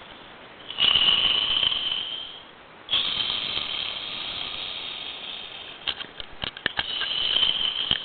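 A man snoring loudly with a rattling rasp: one long snore about a second in, a longer one after a short pause, and another near the end, with a few sharp clicks in between.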